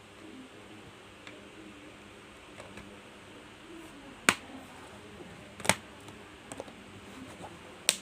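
Three sharp clicks, with a few fainter taps between them, from plastic and metal laptop parts being handled during a RAM upgrade.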